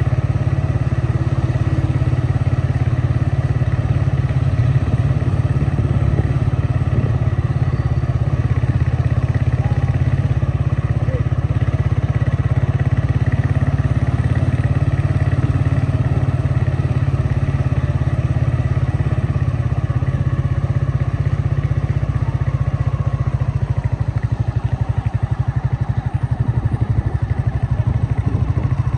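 A motor vehicle running steadily, with a heavy, unbroken low rumble.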